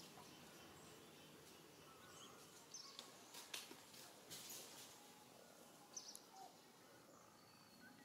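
Faint outdoor ambience with two short high chirps, about three and six seconds in, and a few soft clicks in the middle.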